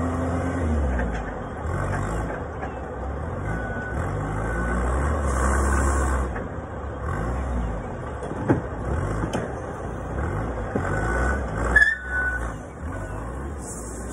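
Forklift engine revving up and down as it drives and lifts a stack of plastic bins, with a high beeping tone coming and going. A sharp knock about eight and a half seconds in and a louder clack near the twelve-second mark.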